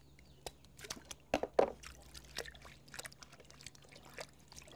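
Water splashing and dripping in a plastic basin as cassava roots are washed by hand, in scattered small splashes with a louder cluster about a second and a half in.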